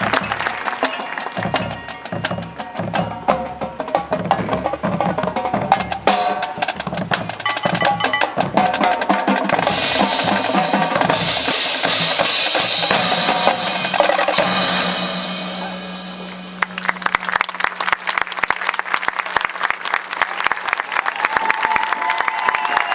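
Marching band playing with its drumline and mallet percussion, closing on a long held low note that fades out about fifteen seconds in. The crowd then breaks into applause.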